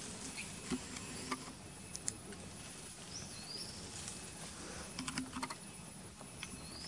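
Forest ambience: a steady insect drone with scattered light clicks and rustles, and a couple of short high chirps about three seconds in and another near the end.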